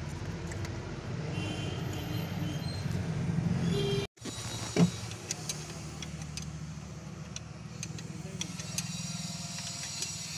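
Spanner working on the diesel filter fittings of a Tata Indigo DICOR engine, making a few light metal clicks. The loudest click comes just under five seconds in, right after a momentary dropout. A steady low hum runs underneath throughout.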